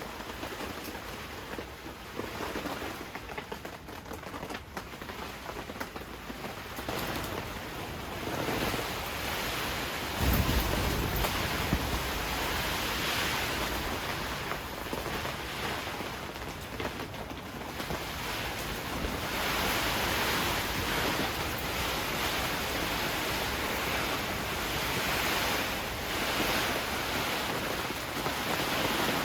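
Heavy rain falling while gusty wind rises and falls, with a strong gust buffeting the microphone about ten seconds in.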